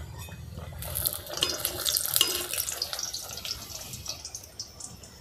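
Spinach luchi deep-frying in hot oil, the oil sizzling and crackling as the puri puffs up. The crackle swells about a second in and dies down toward the end.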